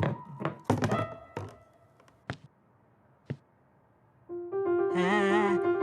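Cartoon soundtrack: a quick run of knocks and short plinked notes, a nearly quiet pause broken by two soft ticks, then from about four seconds in a steady held note with a wobbling, warbling tune above it.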